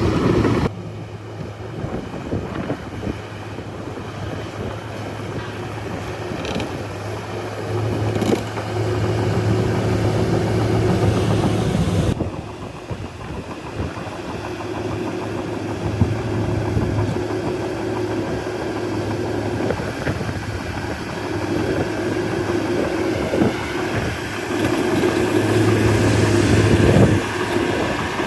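Shantui crawler bulldozer's diesel engine running, swelling louder in surges several times, with a few sharp knocks.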